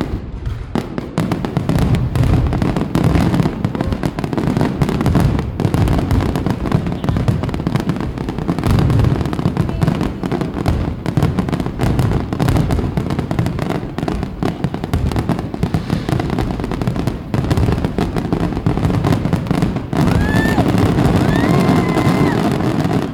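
Fireworks display: a dense, continuous barrage of bangs and crackling shell bursts.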